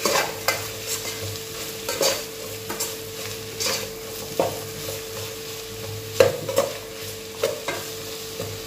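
Metal spoon stirring onions, garlic and ginger sautéing in oil in a pot, with irregular scrapes and knocks against the pot over a steady sizzle. A faint steady hum runs underneath.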